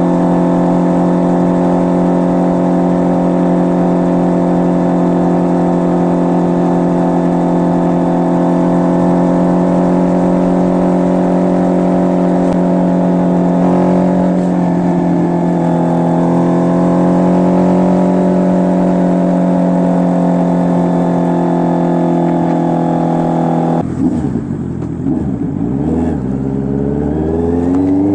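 Honda CB650R's inline-four running through an SC Project full exhaust, holding steady revs under way. Near the end the revs drop off, waver, then climb again as it accelerates.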